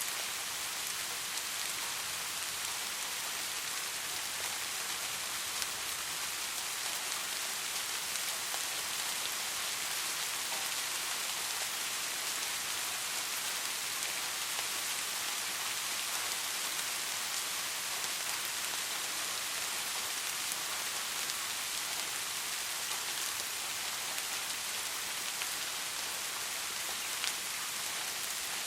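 Steady soft rainfall: an even hiss of rain with scattered drops ticking on a surface.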